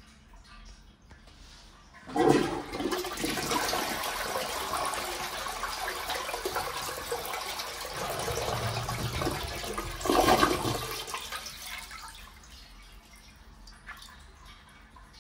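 1976 Armitage Shanks 'Unimyna' close-coupled syphonic toilet flushing, its syphon a replacement Turbo 88: a sudden rush of water about two seconds in, held for several seconds, a second surge about ten seconds in, then dying down to a quieter trickle.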